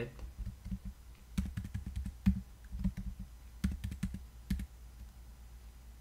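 Computer keyboard keys tapped in a few quick clusters of clicks, a run of keystrokes that removes a stretch of code, then a pause near the end.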